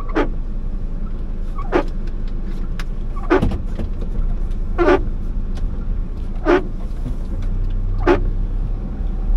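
Car windshield wipers sweeping about once every second and a half, over the car's steady low rumble while driving in the rain.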